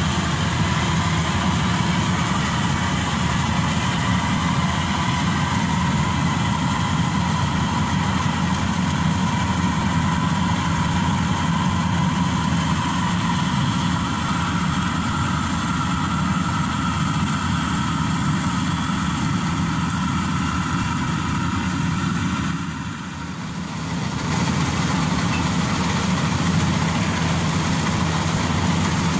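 Combine harvester engine running steadily while the machine cuts and threshes rice. The level dips briefly about two-thirds of the way through.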